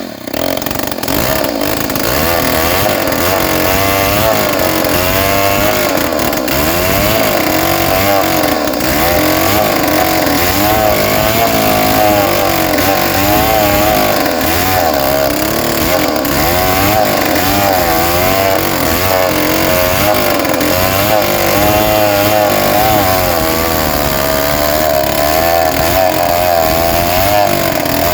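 Stihl 070 two-stroke chainsaw held at high revs while ripping lengthwise through a rain tree log. The engine note wavers up and down as the chain loads and frees in the cut.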